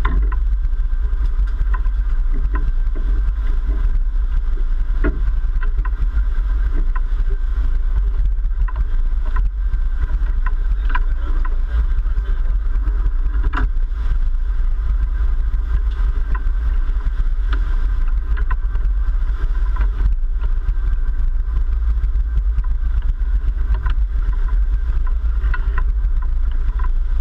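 Sportfishing boat's engines running steadily, a constant low rumble, with water churning at the stern.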